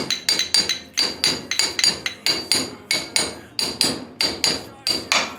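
Steady hammering on metal: evenly spaced blows, about four a second, each with a brief metallic ring.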